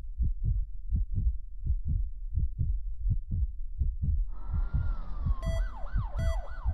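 Produced intro sound effects: a deep pulse beating about three times a second, joined about four seconds in by a swelling whoosh with a falling tone. Near the end, siren-like wails rising and falling and a repeating beep come in over the pulse.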